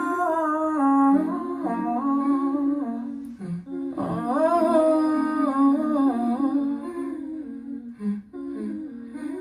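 Music played through Bowers & Wilkins 606 S3 bookshelf speakers in a small room: the slow intro of a song, a single melodic line of long held notes stepping up and down. It breaks off briefly about three and a half seconds in and again near the end.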